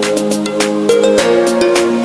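Background music with a steady beat: held chords over quick, regular percussion hits, with a chord change about a second in.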